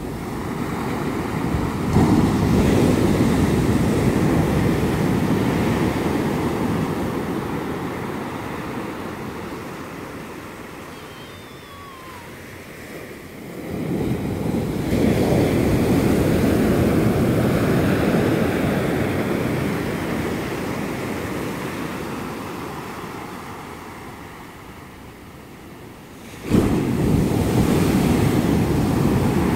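Ocean waves breaking on a sandy beach, with the foam washing up the sand. Three waves come in about twelve seconds apart: each crashes in suddenly and then fades slowly as the wash runs up and drains back.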